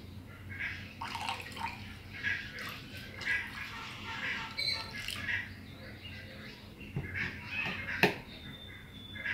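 Vinegar poured from a plastic bottle into a bowl of water, trickling and splashing in short spurts, with birds calling around it. About eight seconds in there is one sharp knock as the bottle is set down on the wooden table.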